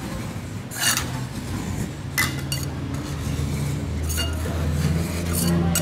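Metal spatula scraping and clinking on the steel cold plate of a rolled ice cream pan, with several sharp clinks about a second apart over a low steady hum.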